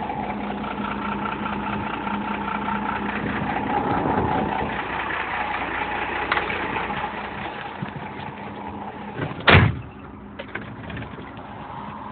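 Mercedes truck's diesel engine running through its exhaust, its steady note fading after about eight seconds. A single loud thump comes near the end.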